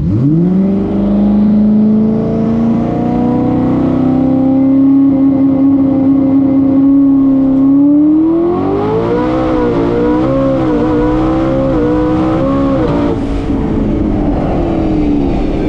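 Race truck's turbocharged V8 revving hard at the drag strip. The revs climb sharply and hold high and steady for several seconds, then rise again and waver up and down before dropping back.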